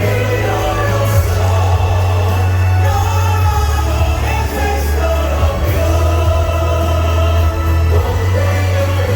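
Background music with singing over a sustained bass line.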